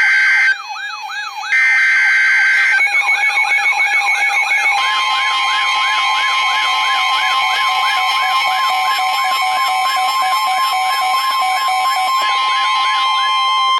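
NOAA Weather Radio emergency alert: screechy SAME digital header bursts near the start, then the steady 1050 Hz warning alarm tone from about five seconds in, with a warbling siren-like alarm rising and falling about three times a second over it. Together these mark an incoming warning just before the voice message.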